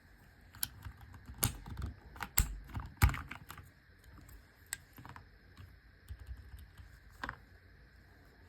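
Typing on an AJAZZ AK680 mechanical keyboard with stock brown tactile switches: irregular keystrokes, busiest and loudest in the first half with one heavy strike about three seconds in, then sparser presses that stop shortly before the end.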